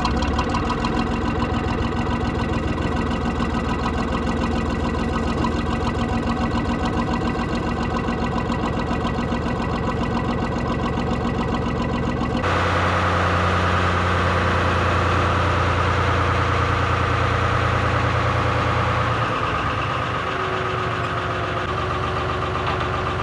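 Small tugboat's diesel engine running steadily at idle. Its tone changes abruptly about halfway through, and again near the end.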